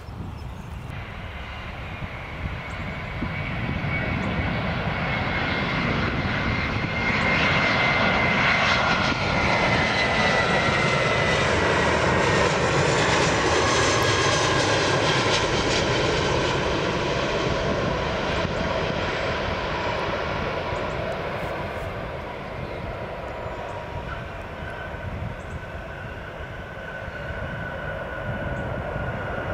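Airbus A320 jet airliner passing close with its landing gear down, its engine noise building to a loud peak and fading, with a whine that falls slowly in pitch as it goes by. Near the end the engine sound swells again with a steady whine as the jet rolls out on the runway.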